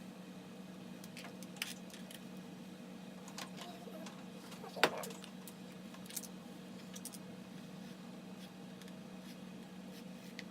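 Scattered light clicks and taps from handling hair-styling tools, with one sharper click about five seconds in, over a steady low hum.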